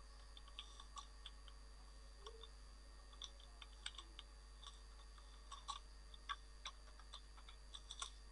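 Faint, irregular clicking of a computer keyboard and mouse, some clicks in quick little runs, over a low steady hum.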